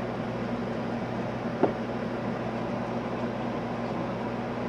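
Steady low machine hum, with one short click about a second and a half in.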